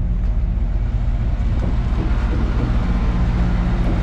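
Semi-truck diesel engine running steadily, a low even rumble with no change in speed.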